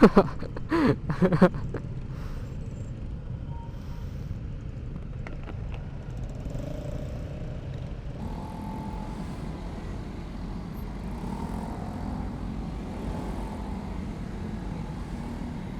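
Steady low rumble of a motorcycle riding in city traffic, heard from the rider's position. The first second and a half holds a few short, loud pitched sounds, after which the rumble runs on evenly.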